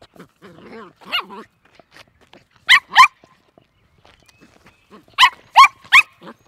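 Puppy barking in short, high-pitched yaps: two quick barks about three seconds in, then three more near the end.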